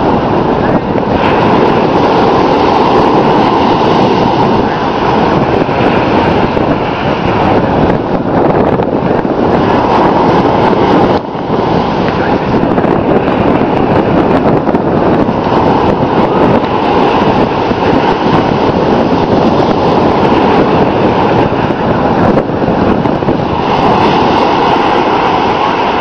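Wind buffeting the microphone over the wash of ocean surf, a loud, unbroken rush that dips briefly about eleven seconds in.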